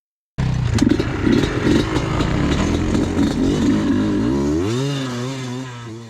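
Yamaha Blaster 200's single-cylinder two-stroke engine running unevenly. Near the end its pitch rises and then holds higher and steadier.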